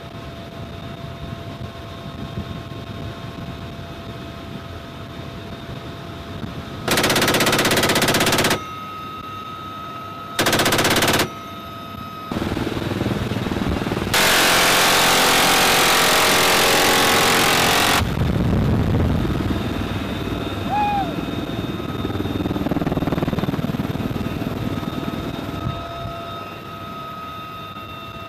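Door-mounted GAU-17/A six-barrel 7.62 mm minigun on a UH-1Y helicopter firing three bursts: one of about a second and a half, a short one, and a longer one of nearly four seconds. Each is a dense continuous stream of fire that starts and stops abruptly. Between the bursts is the helicopter's cabin noise, with steady whining tones over a low rumble.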